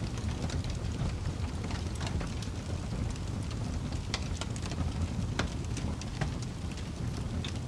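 Wood fire burning steadily with a low rumble, crackling and popping in frequent sharp snaps.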